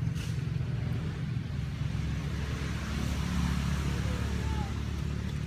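A motor vehicle's engine running nearby, a steady low rumble that swells about three seconds in and then eases.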